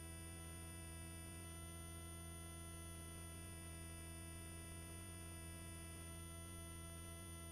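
Faint steady hum of a helicopter's intercom audio feed: several constant tones, strongest low down, with no voices on the line.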